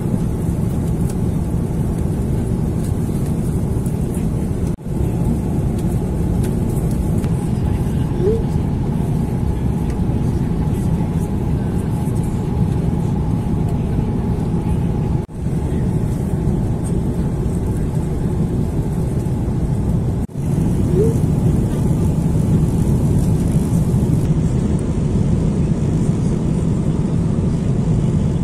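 Steady cabin noise of an Airbus A330 airliner in flight: a constant low rush of engine and airflow with a faint steady hum above it, broken by three brief drops in level.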